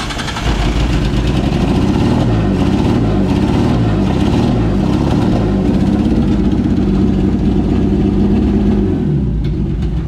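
RB25 straight-six on individual throttle bodies running, revved by hand at the throttle linkage. The revs rise and fall several times, then hold steady before dropping back about nine seconds in.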